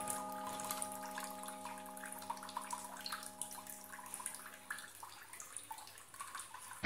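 The tail of a song fading out: a held chord dies away and stops about five seconds in, over a faint crackling, trickling noise.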